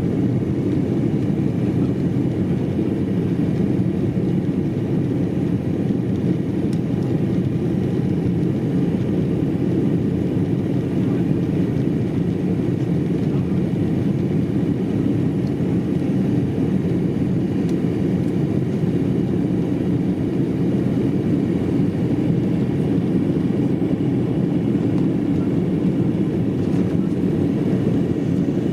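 Steady, even cabin noise of an Embraer ERJ-195LR airliner heard from inside the passenger cabin: a low drone of its turbofan engines and airflow, unchanging throughout.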